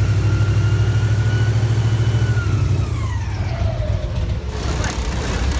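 Airboat engine and propeller running with a steady low drone, the pitch falling in the second half as it throttles down.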